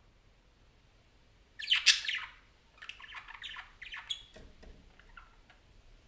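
Budgerigar chattering: a loud burst of chatter about a second and a half in, then a string of shorter chirps and calls that trail off.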